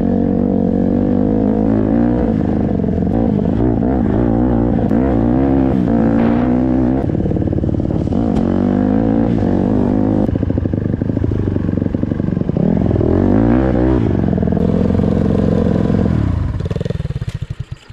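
Dirt bike engine running and being revved, its pitch swelling up and falling back over and over, until the sound drops away near the end.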